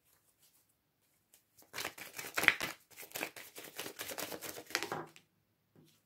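Tarot cards being shuffled by hand: a quick run of crisp card clicks and flutters starting about two seconds in and stopping about five seconds in.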